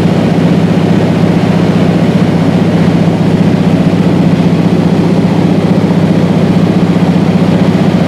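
Steady, loud drone of a light aircraft's engine and propeller heard from inside the cabin, a constant low hum without change.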